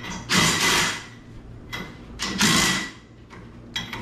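Cordless drill with a socket run in short bursts of about half a second on a UTV's wheel hub, two strong runs about two seconds apart with a couple of brief blips between, each with a steady motor whine.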